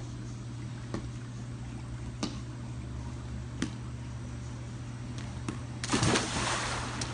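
A person jumping feet-first into a swimming pool: one big splash about six seconds in, preceded by a few light taps, over a steady low hum.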